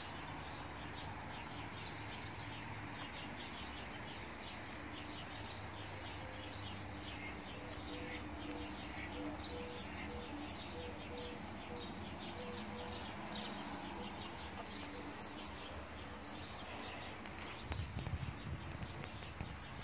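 Birds chirping continuously in the surrounding trees, with many short high calls. A low note repeats about twice a second through the middle, and a brief low rumble comes near the end.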